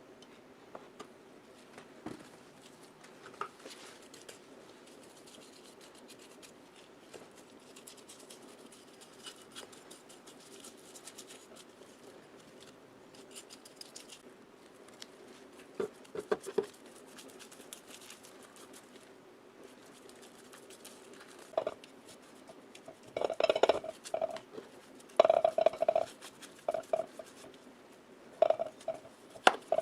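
Metal parts and tools being handled on a workbench: scattered light clicks and scrapes, then a run of louder ringing metal clinks and knocks in the last several seconds, over a faint steady hum.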